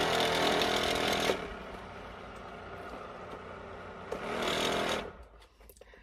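Small portable electric fan running with one of its blades broken off completely. The noise drops much quieter after about a second, comes back loud briefly about four seconds in, then stops about five seconds in, followed by a few faint clicks.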